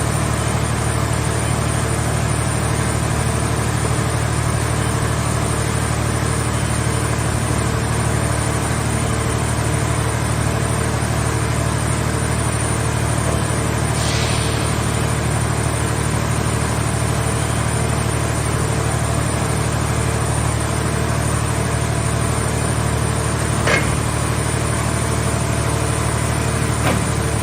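Car-scrap baling press's power unit running steadily with a low, even hum, with a couple of sharp clicks in the second half.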